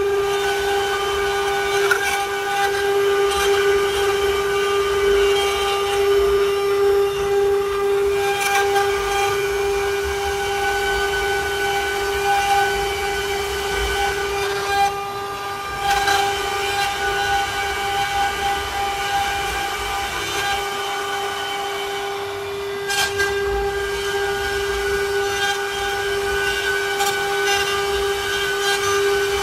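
CNC wood-carving router's spindle motor running with a steady high-pitched whine and its overtones, which dips briefly twice.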